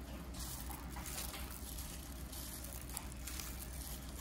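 Rain falling steadily, an even hiss that swells and eases unevenly, with a low steady hum beneath.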